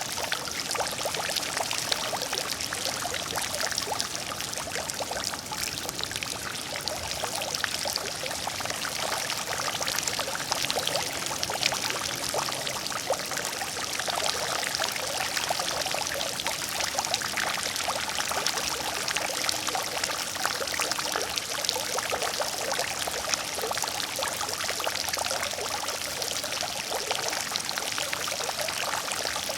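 Water fountain running steadily: a continuous splash of falling water with many small droplet patters.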